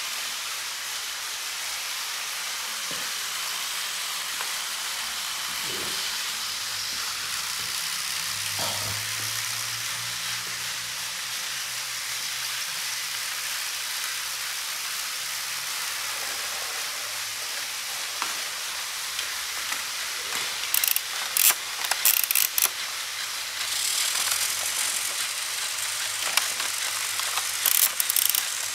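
Battery-powered toy train motors running on plastic track, a steady whirring hiss with a faint low hum. A few sharp plastic clicks and clatters come about two-thirds of the way through and again near the end.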